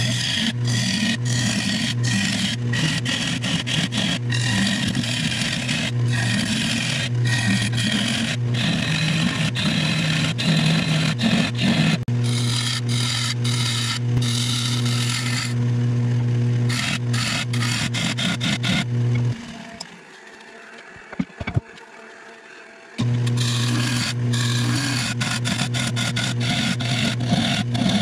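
A wood lathe runs with a steady motor hum while a turning tool cuts the inside of a spinning juniper-and-epoxy bowl, a scraping, hissing cut with many quick ticks. About two-thirds of the way through the cutting and hum drop away for a few seconds, with a couple of clicks, then start again.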